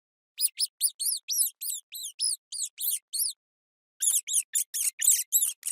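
Mouse squeaking: a quick run of short, high-pitched squeaks, each rising then falling in pitch, about four a second, with a brief pause a little past the middle before the squeaking starts again.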